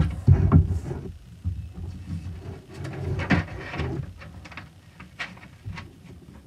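Glossy magazine paper being handled and folded on a cutting mat: rustling and crinkling as the page is flipped and refolded, with hands pressing and sliding along the fold. Louder in the first second and around three seconds in, fainter later.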